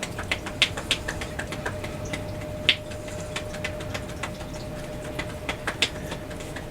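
Light, irregular tapping, several taps a second, from fists or fingers tapping on the body in a qigong self-massage, with one sharper tap near the middle. A faint steady hum sits under it.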